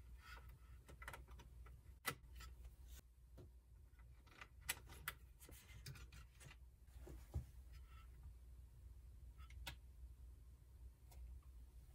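Faint scattered clicks and light metallic taps from a CPU being set into its LGA1150 socket and the socket's load plate and retention lever being pressed closed, over a steady low hum.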